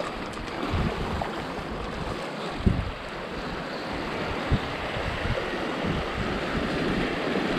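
Sea surf washing over a rocky shoreline, building toward the end, with wind rumbling on the microphone and a couple of low thumps.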